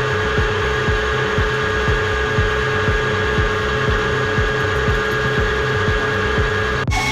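A metalworking machine motor runs steadily with an even whine, over background music with a regular beat.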